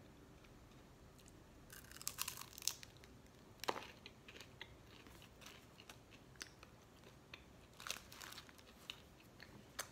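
Faint crunching and chewing of a chocolate-strawberry bonbon with a crunchy centre: clusters of short crackles about two seconds in and near eight seconds, with a sharp crunch between them.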